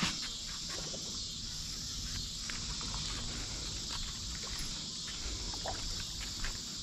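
Steady high-pitched chorus of insects, with a few faint scattered clicks and a low rumble underneath.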